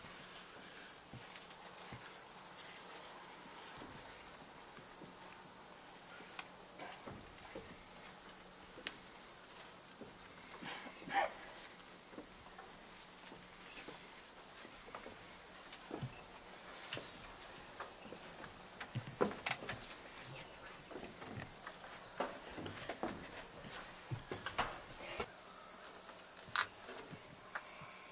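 Steady, high-pitched insect chorus of crickets in the woods, with scattered knocks and footsteps on wooden stairs, which come more often in the second half.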